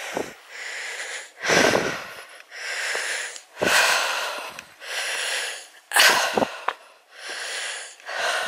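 A walking hiker's heavy, wheezy breathing close to the microphone, in and out at about one breath a second.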